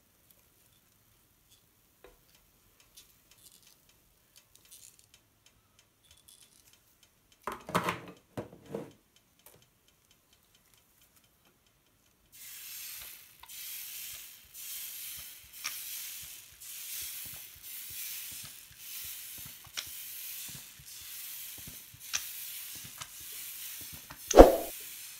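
Pancake batter squeezed from a squeeze bottle in lines onto a hot griddle, sizzling in swells about once a second, one for each line of batter. Before it there is near silence with a short clatter about eight seconds in, and a thump comes near the end.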